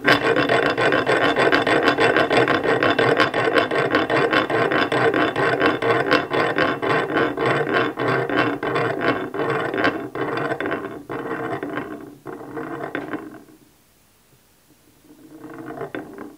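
The pair of meshing steel crank gears of a rhombic Stirling engine, with brass counterweights, spinning freely in the open aluminium crankcase and coasting down: a loud rasping rattle of gear teeth that slows and dies out about thirteen seconds in. A shorter, quieter turn of the gears comes near the end.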